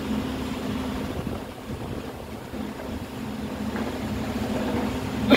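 Truck-mounted borewell drilling rig and its Doosan air compressor running: a steady diesel engine drone with a constant low hum. A brief loud burst comes right at the very end.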